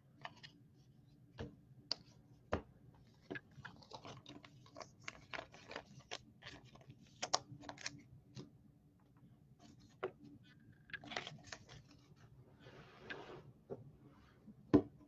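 Baseball trading cards being flipped through and handled: a faint, irregular run of light clicks and short rustles of card stock, with a couple of longer rustles and one louder knock near the end.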